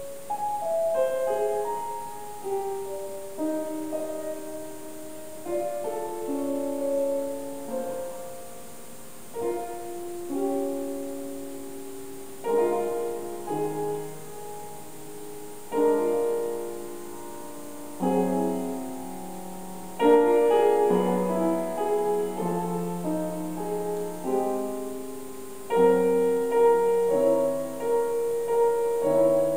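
Grand piano played solo: phrases of struck chords and melody notes left to ring, growing louder and fuller about two-thirds of the way through.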